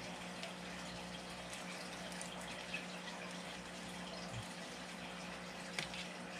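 Steady faint trickle of running water over a low hum, with a few faint taps of a fillet knife on a plastic cutting board as a snapper is filleted.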